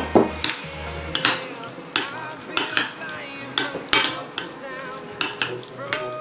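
A fork clinking and scraping against a bowl as it stirs anchovies through a wet flour batter: a run of irregular sharp taps, a few a second, with soft squelching of the batter.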